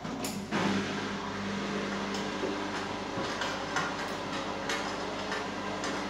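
Candy Smart washing machine starting its spin cycle. About half a second in, the motor sets in with a steady hum, and the drum turns slowly with the laundry tumbling, giving irregular knocks and clicks. This slow tumble spreads the load before the drum speeds up to spin.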